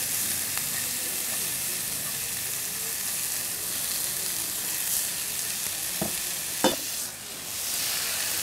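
Green chillies, mint and coriander leaves sizzling in a pan as they are sautéed and stirred, a steady hiss. About six seconds in come two sharp knocks, the second the loudest sound.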